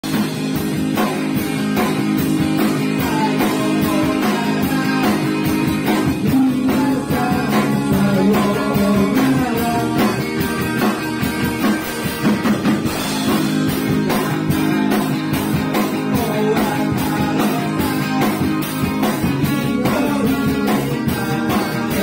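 A rock band playing live: electric guitars, bass and a drum kit, with a steady drum beat.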